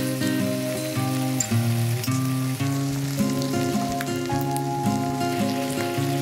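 Instrumental background music over food sizzling and crackling in a hot pan.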